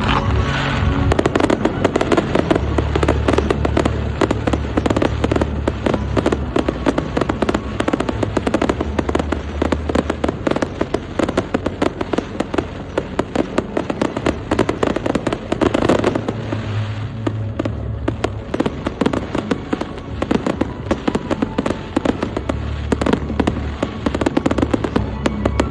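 Fireworks display going off continuously: a rapid, dense run of bangs and crackles, with music playing underneath.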